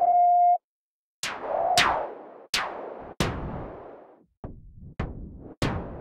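Synthesized white-noise hits from the Vitalium software synth played through a diode filter, a rough draft of an explosion sound effect. Seven sharp hits come in quick succession, each starting bright, sweeping down and decaying. A steady tone is held before them and cuts off about half a second in.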